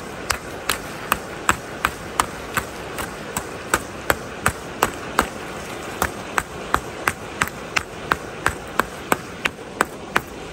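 Two rusty iron hammer heads knocked together in a steady rhythm, about three sharp metallic clinks a second.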